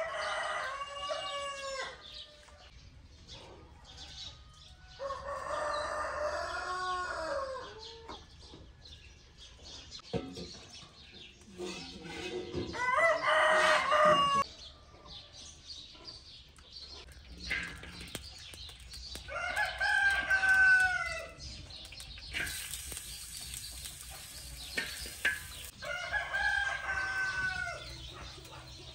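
A rooster crowing five times, about every six or seven seconds, each crow a long pitched call.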